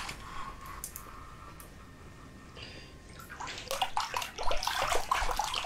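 Water splashing and sloshing in an ice-fishing hole, starting about three and a half seconds in, as a hooked cutthroat trout thrashes at the surface while it is pulled up.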